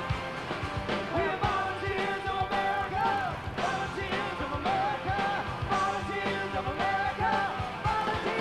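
Rock band playing live on drums and guitars, with a singer's voice over the band.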